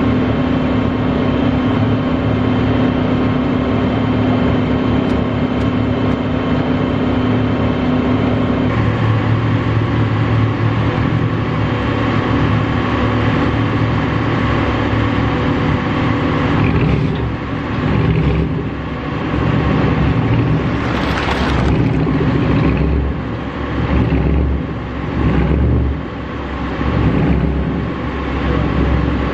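Flatbed tow truck's engine running steadily under load while its winch drags a car up the tilted bed. The pitch changes about 9 seconds in, and in the second half the sound rises and falls in level several times.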